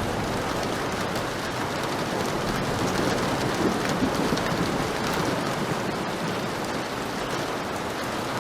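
Heavy rain falling steadily in a dense, even hiss, with a low rumble of thunder underneath around the middle.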